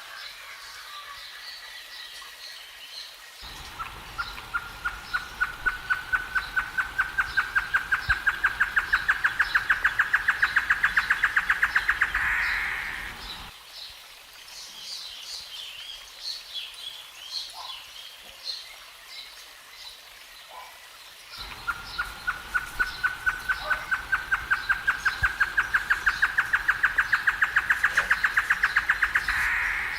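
Great antshrike (Taraba major) singing twice: each song is a long series of hooting notes that speed up and rise slightly in pitch, ending in a rough, snarling burst. Fainter high chirps from other birds fill the gap between the songs.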